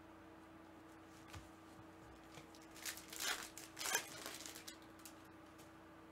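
Plastic trading-card pack wrapper crinkling and tearing as a pack is opened, in two short clusters of rustling about three and four seconds in, over a faint steady hum.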